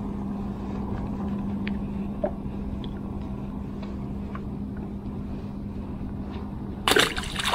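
A boat's motor hums steadily at one pitch over a low rumble, with a few faint ticks. A short, loud rush of noise comes near the end.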